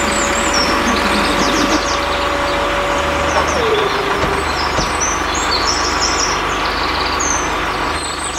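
A motor or engine running steadily, its whine holding one pitch and then dropping lower a little past three seconds in, with birds chirping over it.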